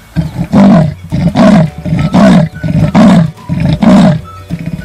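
Leopard's sawing call: a loud series of harsh, rasping grunts a little under a second apart, each strong stroke followed by a softer one.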